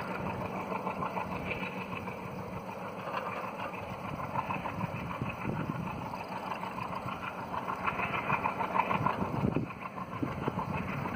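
Distant Indian Railways WDM-3 class diesel locomotive running steadily as it hauls a passenger train.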